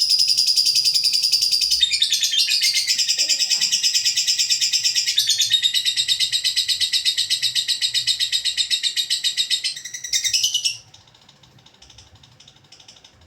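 Caged songbird singing a loud, high-pitched, rapid trill in long unbroken phrases that shift pattern twice and stop abruptly near the end.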